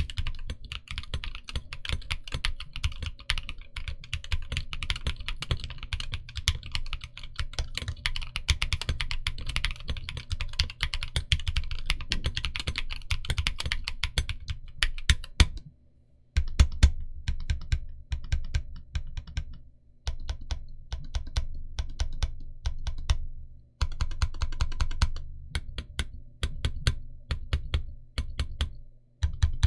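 Typing on a Mekanisk Parallel Sequence 65 mechanical keyboard: a steady run of key presses with a deep thock, stopping for about a second some fifteen seconds in, then coming in shorter bursts with brief pauses.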